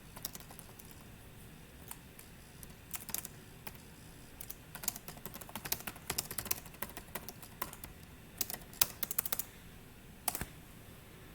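Typing on a computer keyboard: quiet, irregular key clicks in quick runs with short pauses between them.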